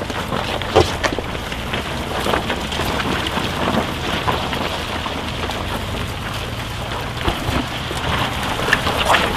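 Off-road 4x4 driving slowly over a rutted, muddy, snowy track: a constant rushing, crackling noise of tyres working through mud and snow, with scattered sharp clicks and knocks, over a low engine rumble.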